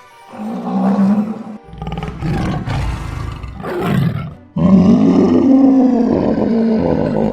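Cartoon animal roar sound effects: a short roar, a rough rumbling growl, then one long roar in the second half.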